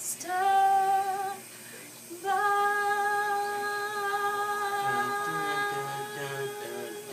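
A woman singing a gospel song unaccompanied, holding a short note and then a long steady wordless note of about four seconds. A soft lower hum moves through a few pitches under it in the second half.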